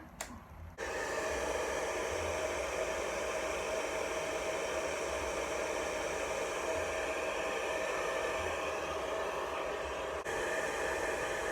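Handheld hair blow dryer switched on about a second in and running with a steady rushing whir, its tone shifting slightly near the end.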